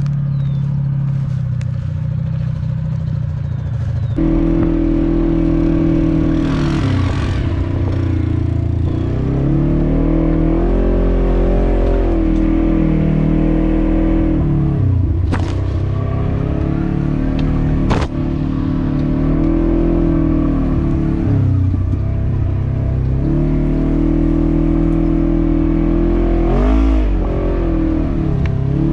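Yamaha Grizzly ATV engine running under the rider, picking up throttle about four seconds in, then easing off and back on several times, its pitch dipping and climbing each time. Two sharp clacks and two short hissing rushes come through over the engine.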